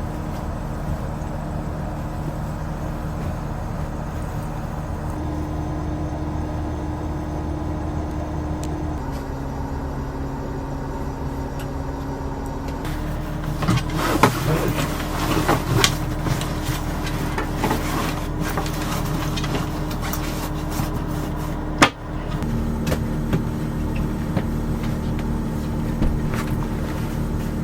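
Iveco K6 camper van driving: a steady low engine and road hum whose pitch shifts a few times, with a spell of clicking and rattling in the middle and one sharp knock a little after that.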